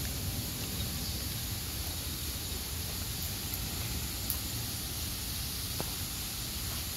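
Steady outdoor background hiss with a low rumble underneath, and a couple of faint clicks about four and six seconds in.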